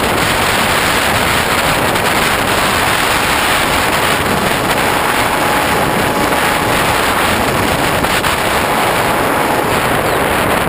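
Steady rush of wind over a GoPro camera mounted on a Hobbyking Bixler RC plane in flight, with the drone of its electric motor and propeller mixed in.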